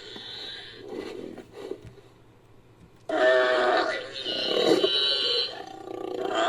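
Sound-designed creature vocalizations layered from animal recordings: a call fades out and rougher low sounds follow, then after a short pause a loud, long call with several stacked pitched tones begins about three seconds in.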